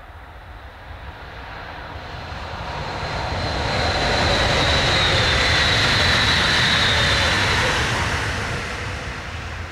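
Mittelrheinbahn class 460 (Siemens Desiro ML) electric multiple units passing at speed: running noise and rumble rise to a loud peak a few seconds in and fade as the train goes by. A high whine rides over the rumble at the peak and drops slightly in pitch as the train passes.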